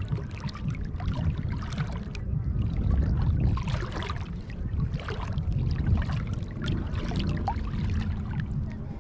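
Shallow seawater splashing and lapping irregularly close to the microphone, over a low, uneven rumble.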